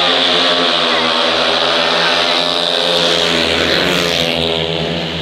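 Engines running loudly and steadily, their pitch drifting slowly up and down.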